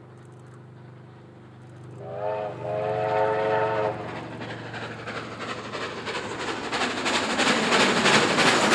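A steam locomotive whistle sounds a chord in a short toot followed by a longer blast. Then the double-headed steam locomotives 3265 and 3526 draw close and pass, their rapid exhaust beats and wheel clatter growing steadily louder.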